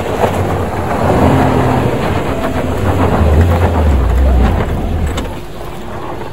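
A Suzuki Jimny's 1.5-litre four-cylinder petrol engine labouring under load as the 4x4 claws up a steep gravel slope, its tyres scrabbling and throwing stones and dirt. The engine note shifts and the sound eases off about five seconds in.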